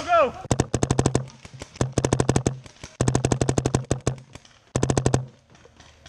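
Electronic paintball marker, an Empire Mini GS, firing four rapid strings of shots, about a dozen a second, with a low hum under each string; it falls quiet for the last second or so.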